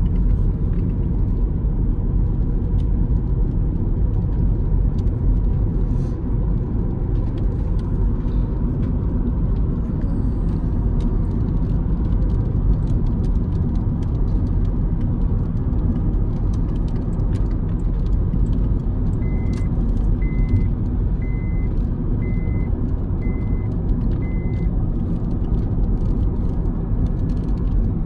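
Steady low rumble of a moving car heard from inside the cabin: engine and tyres on a wet road. A little past the middle come six short high beeps, about a second apart.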